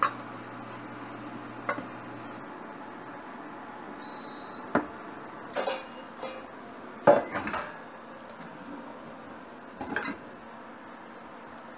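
Stainless-steel pots and bowls clanking and clinking as they are handled at the counter and sink, with several sharp knocks, the loudest about seven seconds in. A short high beep sounds about four seconds in, and a low hum stops a little after two seconds.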